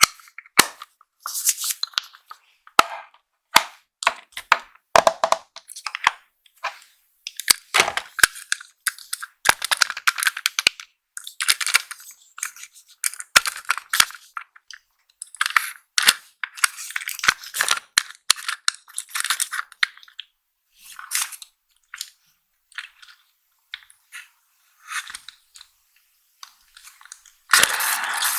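Makeup packaging being unboxed by hand: crinkling and tearing of wrapping, with sharp clicks and taps of small plastic cases, in short bursts with silent gaps between them. A louder rustle with a thump comes near the end.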